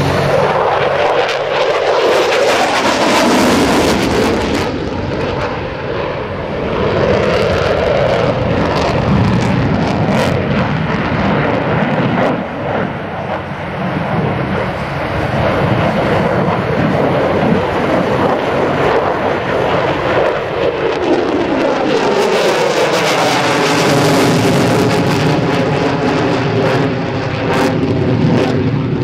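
F-16C Fighting Falcon's jet engine during a flying display, loud and steady throughout. Near the end the tone sweeps and shifts as the jet passes.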